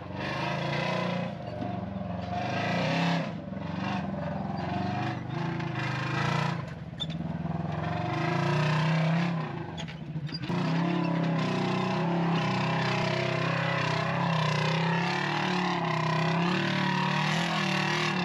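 Polaris RZR 1000 side-by-side's engine running under throttle, the revs easing off and picking back up several times, then holding steadier through the second half.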